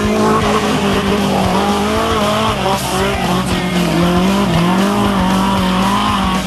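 Trophy truck engine running hard, its pitch rising and falling as the throttle comes on and off.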